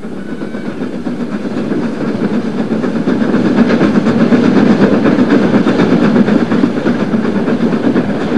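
A double-headed steam train passes at working speed, its running noise growing louder as it approaches and peaking about halfway through. Throughout there is a fast, even clatter of wheels and locomotive beat.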